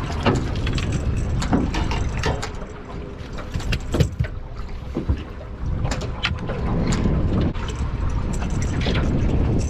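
Steady low wind rumble on the microphone and water moving against a small fishing boat, broken by a string of sharp knocks and clatter from handling gear and fish on board; the loudest knock comes about four seconds in.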